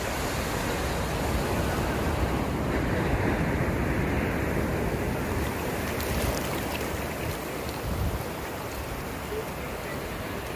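Shallow surf washing up over wet sand in a steady hiss of foaming water, swelling a little in the first half, with a low wind rumble on the microphone.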